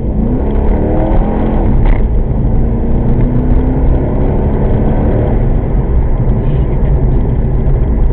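1998 Chevrolet Corvette C5's LS1 V8 under hard acceleration: the revs climb, drop at an upshift about two seconds in, then climb again more slowly until about five seconds in, after which the engine and road noise settle into a steady drone.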